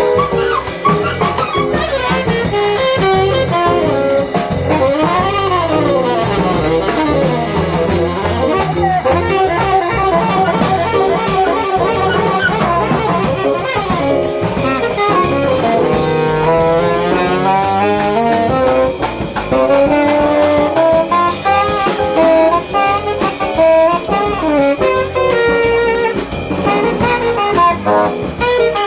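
A jazz quartet playing, with a horn taking a solo of quick runs up and down over bass and drum kit.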